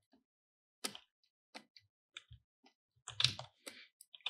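Scattered faint clicks of a computer keyboard and mouse or pen, with a louder cluster of taps about three seconds in.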